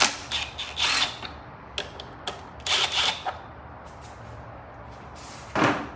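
Hand tools loosening the fasteners on a Honda Grom's plastic side panel: a series of short mechanical clicks and rattles in the first three seconds, then one louder clatter near the end.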